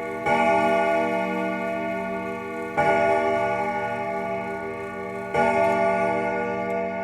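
A clock striking twelve: three bell strokes about two and a half seconds apart. Each stroke rings on, slowly fading into the next.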